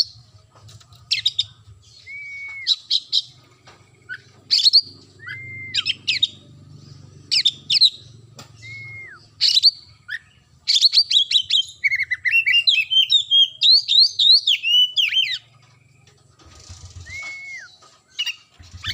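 Oriental magpie-robin (kacer) singing: short, sharp whistled phrases about every second and a half, some of them a flat clear whistle, then a fast run of varied, tumbling notes lasting about four seconds, starting about eleven seconds in.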